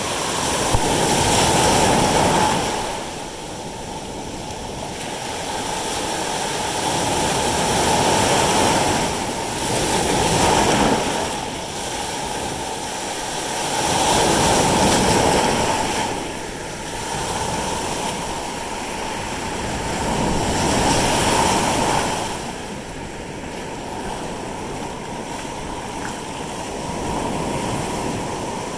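Ocean surf: waves rushing in and falling back, swelling and fading in surges every five or six seconds.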